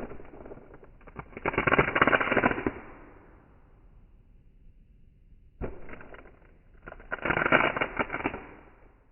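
Adhesive tape being pulled off sticky glue residue, twice: each pull starts with a sharp snap and builds into a dense crackling rip lasting about a second and a half.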